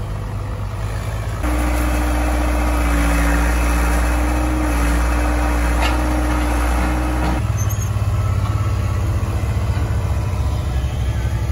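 Engines of a utility vehicle and a backhoe loader running steadily. The engine sound changes abruptly about a second and a half in, and again a little past halfway.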